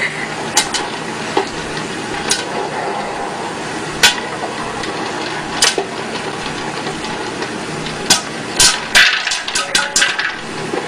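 Popcorn popping in a popcorn popper under its clear dome lid: a few single pops at first, then pops coming quickly near the end, over a steady hiss.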